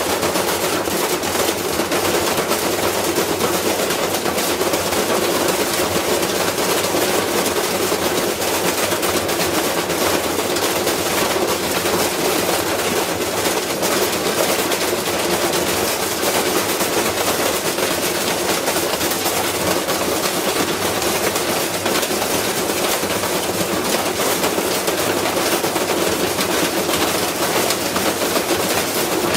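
Washing machine running with a heavy load inside, its drum banging in a rapid, continuous clatter as the machine shakes itself apart.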